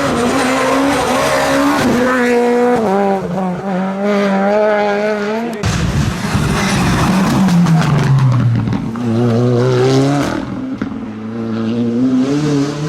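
Rally car engine at hard throttle, its pitch climbing and then stepping down with quick gear changes. Midway it drops in a long fall, then climbs again as the car accelerates away.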